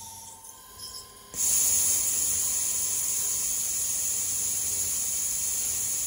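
A steady high hiss cuts in abruptly about a second in and becomes the loudest sound, over a faint whine from a CNC mill spindle turning a nylon blank against a lathe tool.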